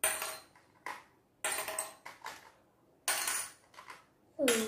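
Small pieces dropped one at a time into small glass jars, each landing with a sharp clink and a short glassy ring; several clinks about a second or so apart. A child's voice speaks a counting word near the end.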